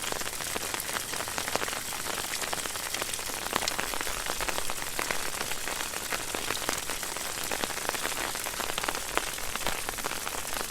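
Water fountain splashing: falling water spatters steadily into a pool, a continuous hiss of water with many small droplet splashes.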